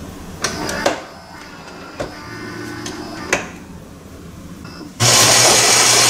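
The Philips 1200 espresso machine's ceramic grinder starts suddenly about five seconds in, with a loud, steady whir and hum. It is grinding beans for the second shot of a double espresso. Before that the machine makes a few sharp clicks and a short hum.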